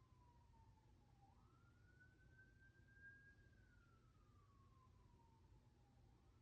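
Faint ambulance siren wailing: one tone that falls slowly, sweeps quickly back up about a second in, holds, then falls slowly again and starts rising once more near the end.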